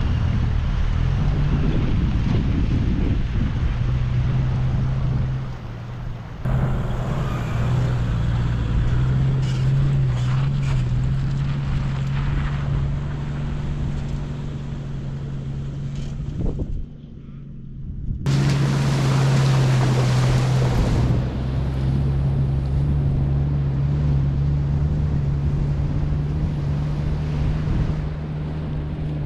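Toyota Land Cruiser 75 series Troop Carrier engine running steadily as the vehicle drives off and fords a shallow river, with wind buffeting the microphone. The engine note breaks off briefly twice.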